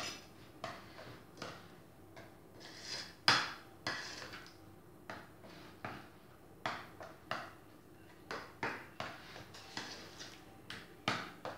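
A utensil clinking and knocking against a bowl at irregular intervals while a ricotta and milk filling is stirred, with one louder knock about three seconds in.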